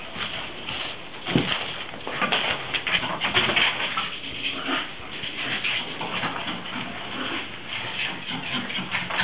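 A pug making a dense run of short, breathy noises while burrowing into a padded fabric dog bed, with the bed's fabric rustling.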